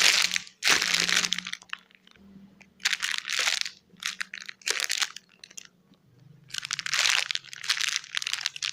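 Crinkling plastic as a foam squishy toy is handled and squeezed, in five separate bursts of a second or so each, the last and longest near the end.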